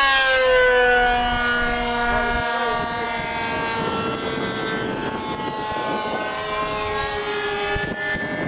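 Radio-control airplane powered by a nitro glow engine and two electric ducted fans, flying past in the air: its motor note drops in pitch over the first second or so as it goes by, then holds steady.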